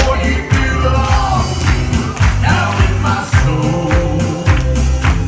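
Upbeat music with singing over a heavy bass line and a steady percussive beat.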